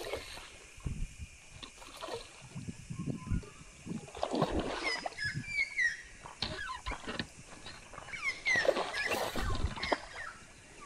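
A hooked carp splashing and thrashing in the shallows as it is reeled in on a baitcasting rod, with irregular sloshes and slaps of water. A few short bird chirps come through around the middle and again later.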